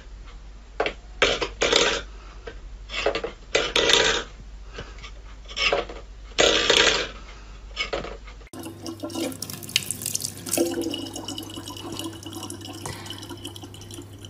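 A steel bowl is pushed and scraped over a wooden floor in a series of short rasping bursts. Then a tap runs a thin, steady stream of water into a plastic water bottle.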